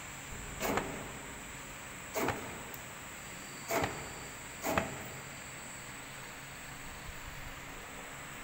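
Mooncake encrusting and forming machine running with a steady hum, and four short mechanical swishes from its forming cycle, the first three about a second and a half apart and the last one a second later. After that only the hum goes on.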